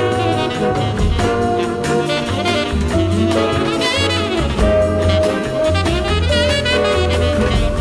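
Instrumental Muzak-style easy-listening music in a jazzy vein: saxophone and brass carry a melody of long held notes with vibrato over a steady bass line and drums.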